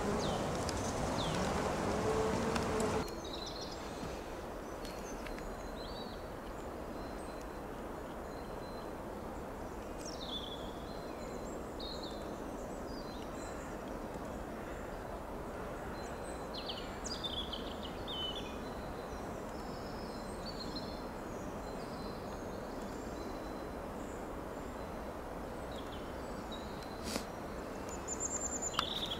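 Small birds chirping now and then over a steady outdoor hiss, with an insect buzzing close by for the first three seconds or so.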